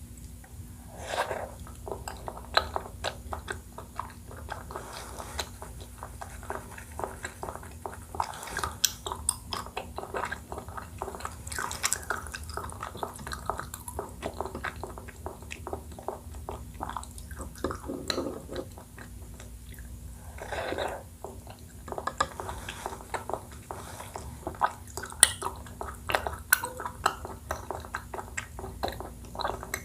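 Close-up eating sounds of a person chewing and slurping Thai desserts in coconut milk: many short wet smacks and clicks coming in clusters.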